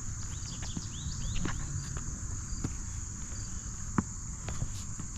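Insect chorus outdoors: a steady, high, unbroken trill of crickets. A few short rising chirps come in the first second or two, and a sharp knock about four seconds in is the loudest sound.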